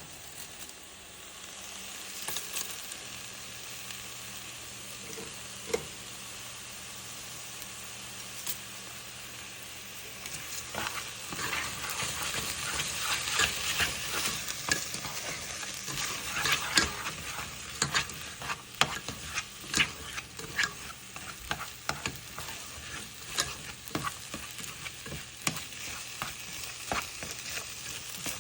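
Fried rice sizzling in a hot pan. From about ten seconds in, a spatula scrapes and knocks against the pan again and again as the rice is stirred.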